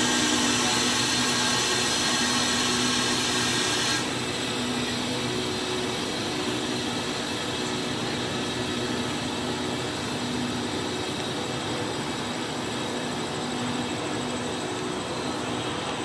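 Passenger express train coaches rolling slowly past at close range, giving a steady mechanical hum and whine with a couple of steady tones. A loud hiss cuts off suddenly about four seconds in.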